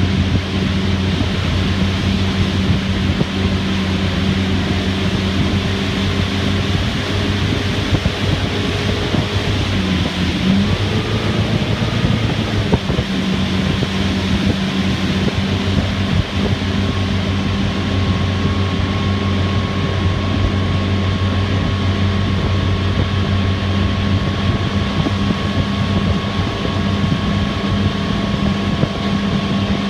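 Motorboat engine running steadily at towing speed, with wind on the microphone. The engine's pitch dips and comes back briefly about ten seconds in.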